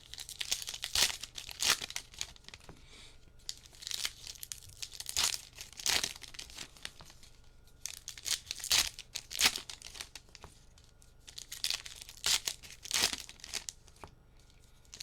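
Foil trading-card pack wrappers being torn open and crinkled, in a string of short irregular rustling bursts.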